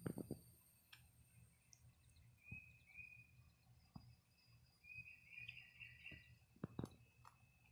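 Serama chicks peeping faintly: a couple of short chirps about two and a half seconds in and a denser cluster around five to six seconds, with a few soft taps scattered through.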